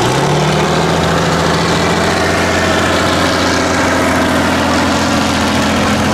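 Tatra 8x8 trial truck's diesel engine running as the truck crawls along a muddy slope. Its pitch rises a little just after the start, then holds steady.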